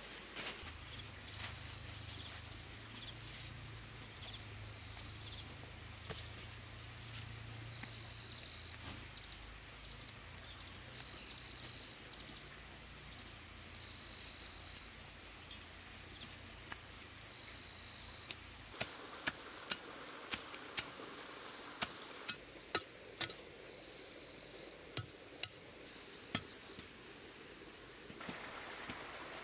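Short high chirps every few seconds over a low steady background hum; about two-thirds in, a run of about a dozen sharp, irregular knocks begins.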